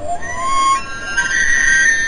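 Background music with a held, gently gliding melody line.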